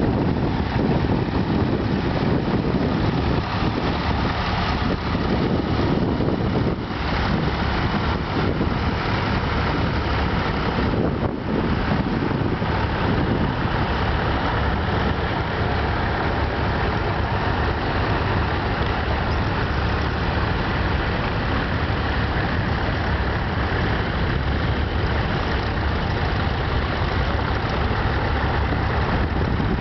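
Vintage tractor engine running steadily while pulling a plough, with a brief dip about eleven seconds in.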